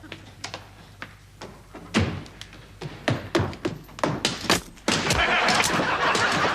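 A series of heavy thuds and bangs, blows of something being smashed indoors, followed about five seconds in by a loud, continuous noise.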